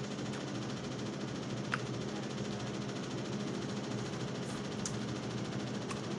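A steady low hum and hiss of room noise, with a few short, sharp smacking clicks as turkey-tail sauce is licked and sucked off fingers.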